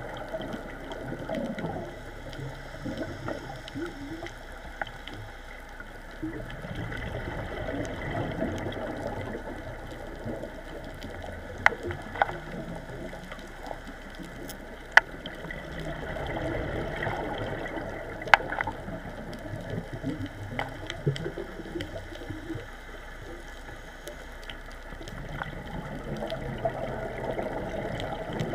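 Underwater ambience on a coral reef heard through the camera housing: a low, shifting wash of water sound that swells and fades slowly, with a few sharp clicks in the middle stretch.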